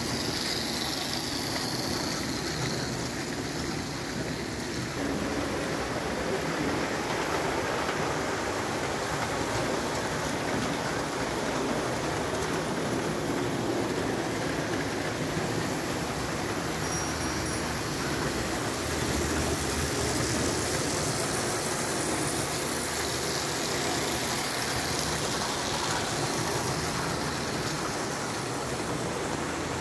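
O gauge tin-plate electric toy train running along its track, a steady rolling noise from the wheels and motor.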